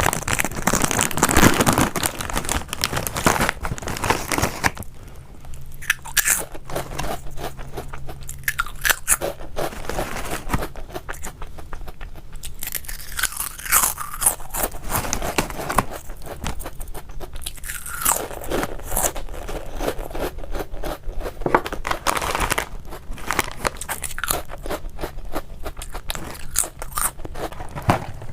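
A crispy packaged snack being bitten and chewed close to the microphone: a long run of sharp crunches, busiest in the first few seconds and again near the end.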